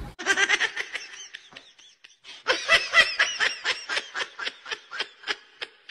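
A person laughing in rapid bursts, in two bouts: a short one that fades out, then a longer, louder one about two and a half seconds in.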